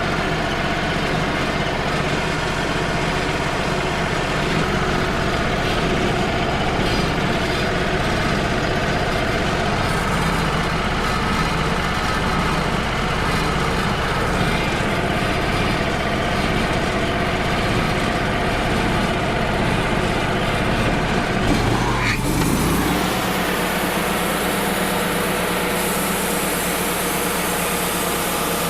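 Wood-Mizer LT35 hydraulic portable sawmill running steadily while edging pine boards. About 22 seconds in there is a brief rising sweep, and the sound turns brighter and hissier with less deep rumble.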